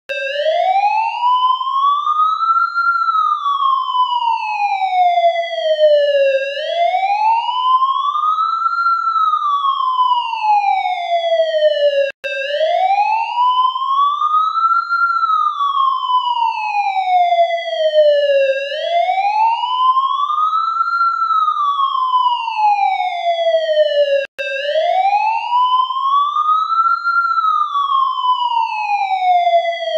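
Ambulance siren sound effect in a slow wail: the pitch rises for about three seconds and falls for about three, over and over, with two very brief gaps.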